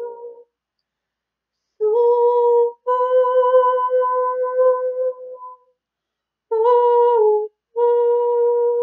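A woman's voice holding long, wordless notes on nearly one steady pitch: four sustained tones, the first starting about two seconds in, each separated by a short breath pause, the second held longest.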